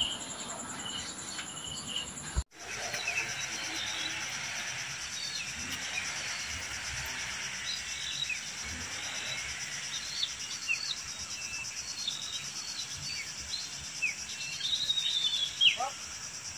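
Insects droning steadily at a high pitch, with many short bird chirps over it, starting after a brief dropout about two and a half seconds in.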